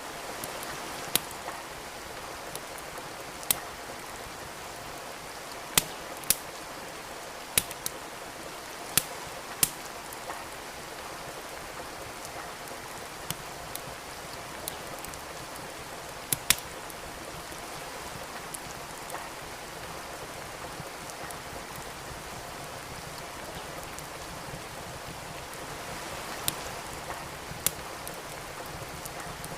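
Steady rain hiss with a wood fire in a fireplace crackling over it: irregular sharp pops and snaps, a dozen or so, some clustered in pairs.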